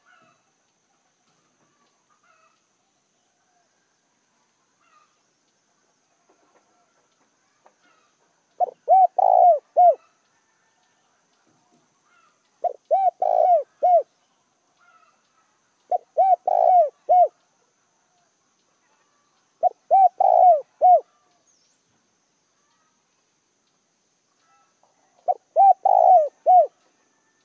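Caged spotted dove, a decoy bird, cooing. The calling starts about eight seconds in, with five phrases of three or four short arched hoots each, spaced a few seconds apart.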